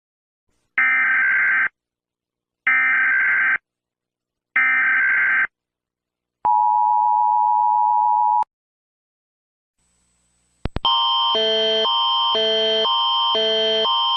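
Emergency Alert System alarm: three one-second bursts of screeching data tones, a second apart, then a two-second two-tone attention signal, typical of the US EAS header and attention tone. About ten seconds in, a different loud electronic alarm starts, a harsh tone pulsing about twice a second.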